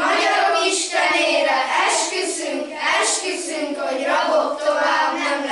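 A group of children singing together in unison, in phrases about a second long.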